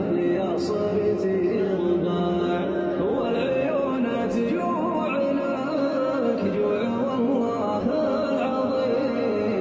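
A song playing, with a singing voice carrying a wavering melody over instrumental backing.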